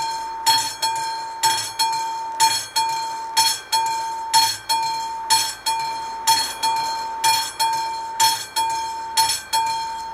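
Electromechanical bell of an AŽD 71 level-crossing warning signal ringing, struck about twice a second in a slightly uneven rhythm, with each stroke ringing on. It is sounding because the crossing is activated for an approaching train.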